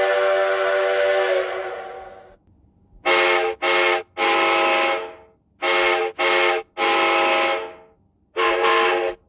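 Casey Jr. circus train's steam whistle sound effect. One long blast fades out about two seconds in, then the whistle toots in a short-short-long pattern twice, with one more short toot near the end.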